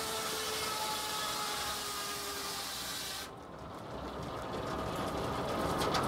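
Large circular sawmill blade cutting lengthwise through a log with a dense, high hiss and a faint whine, which stops abruptly about three seconds in as the cut ends. A lower, rougher mechanical rumble of the sawmill machinery then builds.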